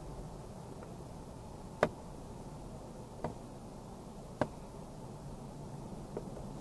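Steady low background hiss broken by four sharp clicks close to the microphone. The first, about two seconds in, is the loudest, and the last, near the end, is faint.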